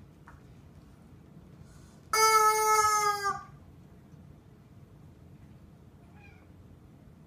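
Rubber chicken squeaky toy squeezed by a dog, letting out one loud squawk about two seconds in that lasts just over a second and drops in pitch as it ends.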